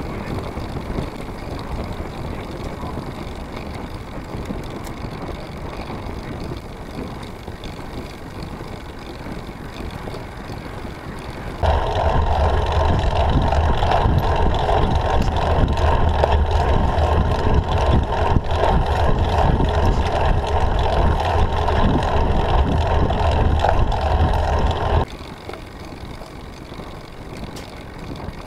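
Steady rush of wind and tyre noise picked up by a camera mounted on a moving road bike. About twelve seconds in it cuts abruptly to a louder, rumbling stretch of wind buffeting that stops just as suddenly about thirteen seconds later.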